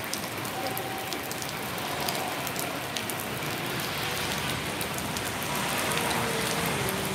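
Steady rain falling, with many small drops ticking sharply close by.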